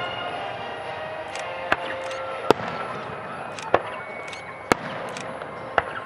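Aerial firework shells bursting: five sharp bangs, roughly one a second.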